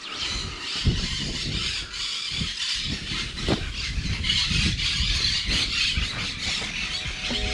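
Wind buffeting the microphone in irregular gusts, over a steady high chatter of many birds calling across the marsh.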